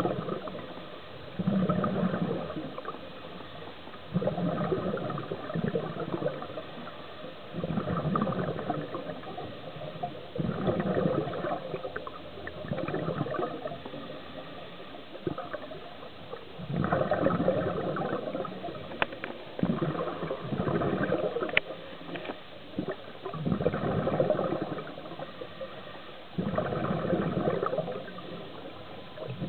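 Scuba diver breathing through an open-circuit regulator underwater: bursts of exhaled bubbles gurgling, about one every three seconds. Two sharp clicks come about two-thirds of the way through.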